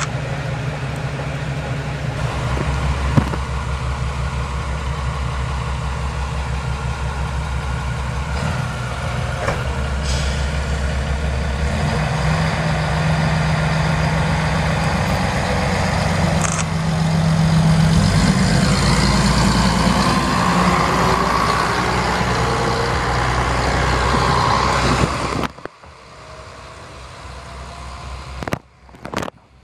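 Diesel engine of a Tarumi Railway Hi-Mo 295 railcar running as the car moves slowly along the platform, a steady low hum whose pitch rises a little midway. Near the end the sound drops suddenly to a much quieter engine hum.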